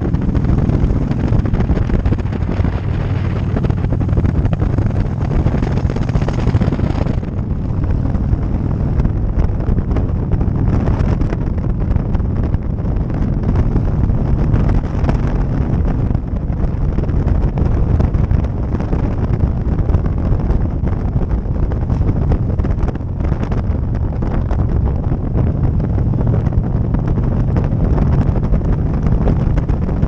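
Motorcycle engine running steadily at cruising speed, heavily overlaid by wind rushing over the microphone. The high wind hiss eases abruptly about seven seconds in.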